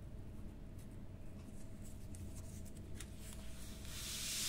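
Faint scratchy clicks of a cat's claws picking at carpet, over a low steady hum. A short rushing noise swells near the end and is the loudest sound.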